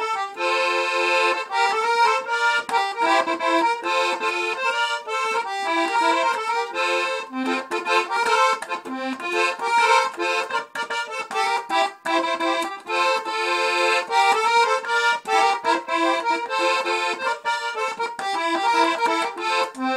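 A diatonic button accordion played solo: a steady stream of quick, short melody notes over lower bass notes.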